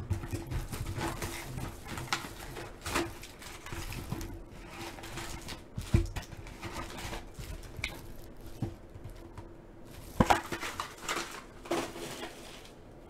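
Plastic shrink wrap crinkling and tearing on a Panini Select football card box, then the cardboard box being opened and its foil packs pulled out and stacked, with sharp knocks about six seconds in and again about ten seconds in.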